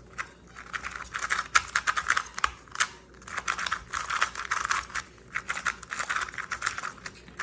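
Plastic 2x2 speed cube being turned quickly by hand: fast runs of small clicks as its layers turn, with brief pauses about three seconds in and near the end.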